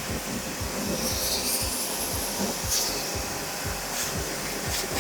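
Portable high-pressure car washer running and spraying: a steady hiss of spray over a low, rapid pulsing from the pump.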